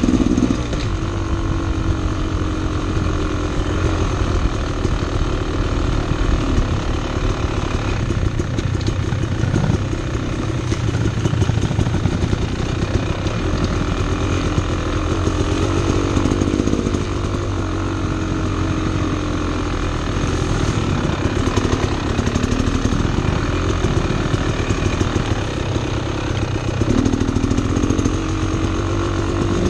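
Two-stroke dirt bike engine running on a trail ride, its pitch rising and falling as the throttle is worked, with a climb in revs near the end.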